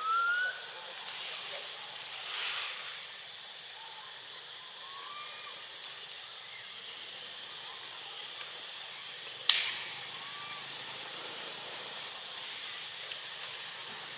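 Outdoor tree-canopy ambience: a steady hiss with a thin high tone over it, faint short chirps every few seconds, and a single sharp click about nine and a half seconds in.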